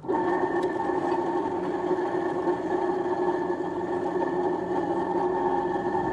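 Pillar drill press running: a steady motor hum with several fixed tones.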